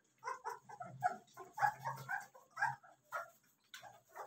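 A litter of young Caucasian shepherd (volkodav) puppies whimpering and yipping in short, high cries, several at a time, while they are bottle-fed.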